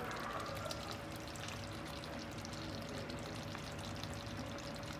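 Pot of humba on a lit electric stove burner, its thick sauce simmering and bubbling with small scattered pops over a steady faint hum.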